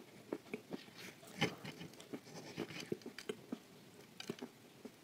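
Close-miked chewing of dry edible clay with paste: a run of small, irregular crunches and crackles.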